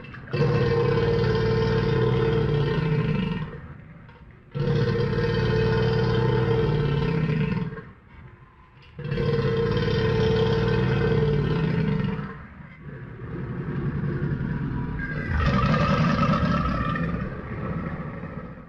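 Crocodile growling: a series of five long, deep growls of about three seconds each, separated by short pauses, the fourth one quieter than the rest.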